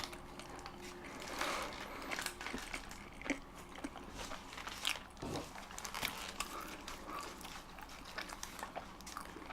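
Chili dogs being chewed close to the microphone: soft, irregular bites and wet mouth clicks.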